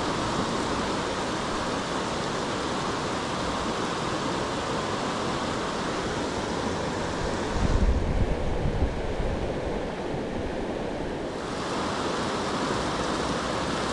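Steady rushing of river water. About eight seconds in there is a brief low rumble, and for a few seconds after it the hiss sounds duller.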